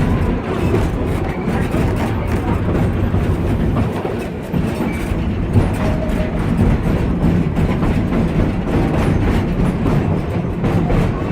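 Train running along the track: a loud, steady rumble with irregular clicks from the wheels and rails.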